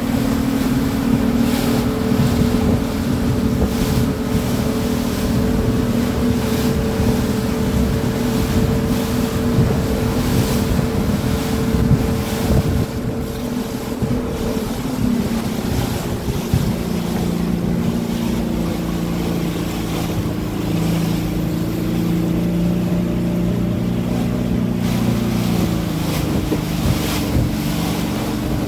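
Pilot boat's engine running under way, with wind buffeting the microphone and water rushing past the hull. The engine note drops about halfway through and again near the end as the boat slows to come alongside a ship's hull.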